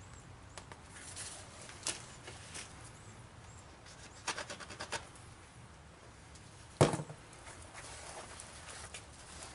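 Handling noise of a stiff, hardened leather sheet being turned and rustled in the hands, with scattered small clicks, a quick run of clicks about four seconds in and one sharp knock about seven seconds in.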